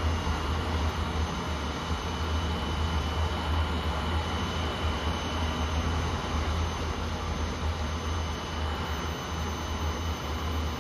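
Steady industrial running noise from a tilting aluminum melting furnace installation under test: a strong low hum under an even roar, with a thin high whine held throughout.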